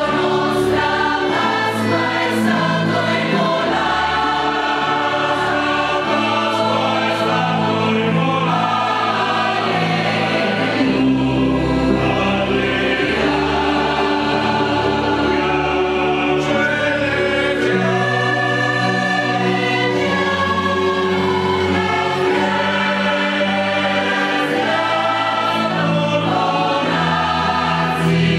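Mixed choir of women's and men's voices singing a sacred piece in parts, with sustained chords over low bass notes that change every few seconds.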